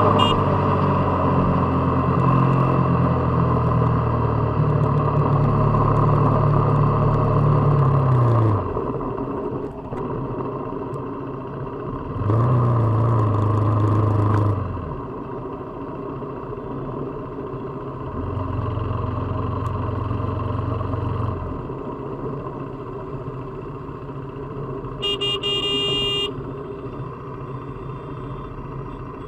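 KTM RC 390's single-cylinder engine and exhaust under way on the road, pulling hard for about eight seconds before the throttle is closed and the pitch falls. About twelve seconds in comes a short burst of throttle, and later a gentler steady pull. A horn sounds briefly near the end.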